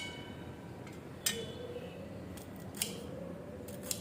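Fresh ginger being cut into small pieces with a metal blade: three sharp metallic clicks, a second or so apart, each with a brief ring.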